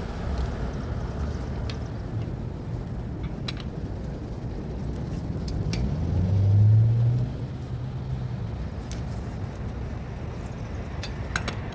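Low rumble of road traffic, with a car driving past close by about six to seven seconds in, its engine note rising and then fading. A few light clicks here and there.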